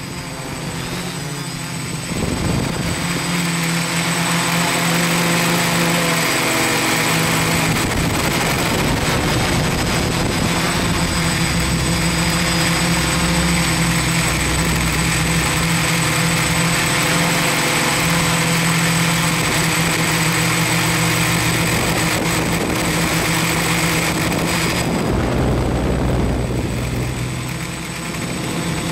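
Quadcopter's electric motors and propellers whirring steadily in flight, the pitch stepping up and down with the throttle. It is quieter for the first couple of seconds and again near the end.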